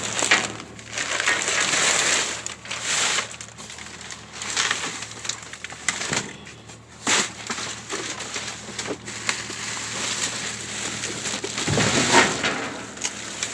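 Trash being rummaged through inside a dumpster: bags and loose debris rustling and shifting irregularly, with occasional sharp knocks. The handling is loudest near the start and again about twelve seconds in.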